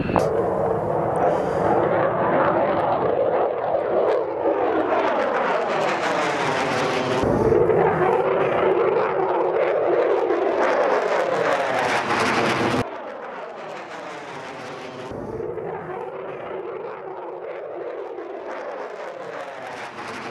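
F-16 fighter jet climbing out on afterburner: loud jet noise that swirls and sweeps as the aircraft passes. About two-thirds of the way in it cuts abruptly to a quieter, more distant jet sound.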